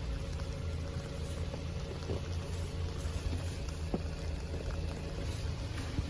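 Snow brush sweeping snow off a car, with faint scrapes and taps, over a steady low rumble.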